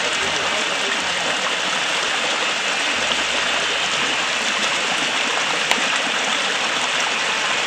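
Steady rushing sound of running water, with one brief click a little before six seconds in.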